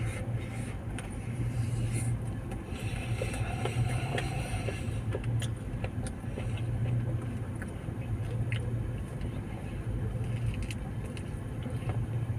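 A steady low hum runs throughout, with scattered faint clicks and crunches from chewing a crispy chicken wrap.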